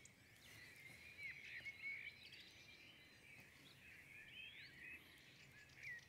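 Faint woodland songbirds chirping and twittering: many short, high chirps that slide up and down, slightly louder around one to two seconds in.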